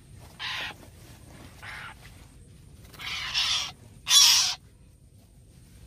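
Harsh bird calls: five short squawks at uneven gaps, the loudest a little past halfway.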